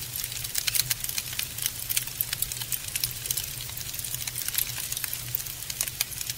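Wood fire crackling: a dense run of irregular sharp pops and snaps over a low steady hum.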